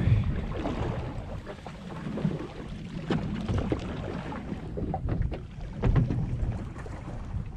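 Wind buffeting the microphone over water lapping against the boat's hull, with a few light knocks.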